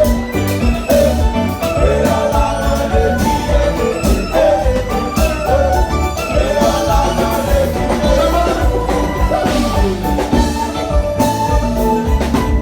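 Loud dance music with a heavy bass beat and drums, playing without a break.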